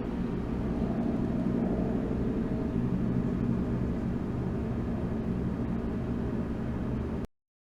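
Steady low machine hum with a rushing noise over it, cutting off abruptly about seven seconds in.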